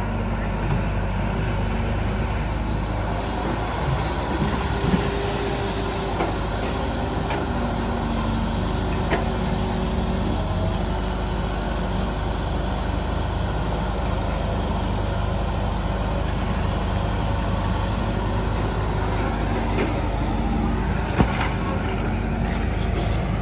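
Diesel engine of a Sumitomo long-reach excavator running steadily under load as the boom swings out, digs in the canal and lifts a bucket of mud, with a few sharp knocks along the way.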